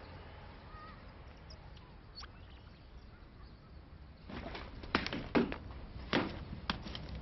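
Quiet street ambience with a few faint bird chirps, then from about four seconds in a run of sharp, irregular footsteps and knocks as someone goes down outdoor steps carrying a bag.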